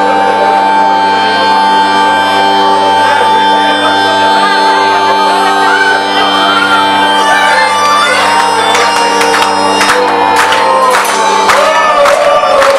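Sustained droning intro music with steady held notes, heard through a live concert PA, with audience shouts and whistles. Sharp, fairly regular hits come in from about eight seconds in.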